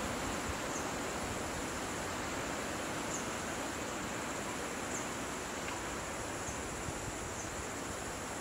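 Outdoor ambience: a steady high insect drone over a constant hiss, with a few short high chirps spread through.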